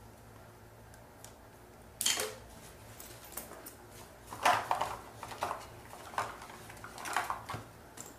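Small hard objects clattering and knocking irregularly, as when someone rummages through a container of makeup items. The noise starts about two seconds in, after a quiet room tone.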